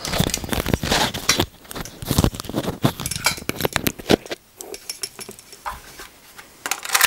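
Clicking and clinking of the plastic-and-metal HK45 CO2 airsoft pistol being handled: a dense run of sharp clicks over the first four seconds, then a few sparse clicks. Near the end comes one sharp, louder click as the magazine release is pressed and the magazine slides out.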